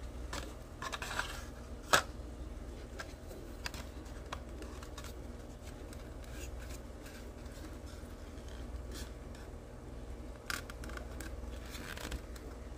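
Plastic scale model car parts being handled and fitted: scattered light clicks and scrapes of plastic, with a sharper click about two seconds in and another near the end.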